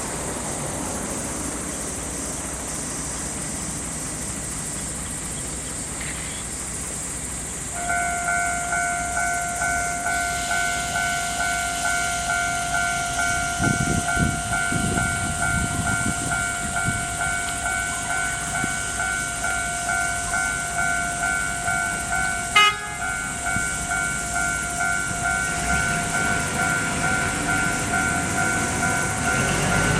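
Japanese railroad crossing alarm starting up about eight seconds in: an electronic bell dinging over and over in a steady rhythm. A single sharp knock cuts in about three-quarters of the way through.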